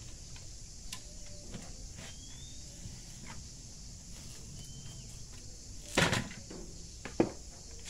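Kitchen knife cutting through watermelon over a plastic basin: faint cutting clicks, then a louder crunching cut about six seconds in and a sharp knock a second later. A bird gives a short rising chirp every few seconds.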